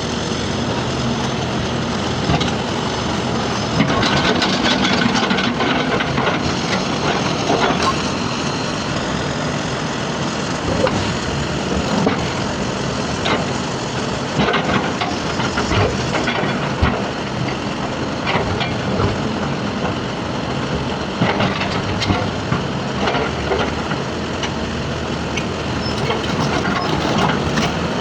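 Heavy earthmoving machinery working: diesel engines running steadily, with scattered knocks and clanks of rock against steel buckets.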